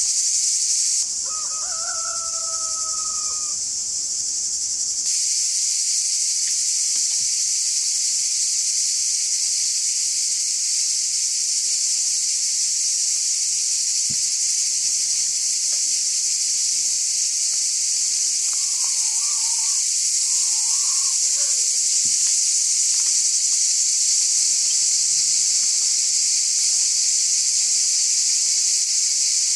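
Steady high-pitched chorus of insects in the summer trees. A rooster crows once about a second in, and a few faint bird chirps come later.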